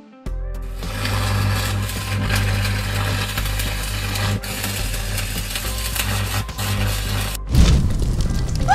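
Electric arc welding: a steady crackling hiss over a low electrical hum. About seven and a half seconds in, a louder, deeper rush of flames breaks in as a fire flares up.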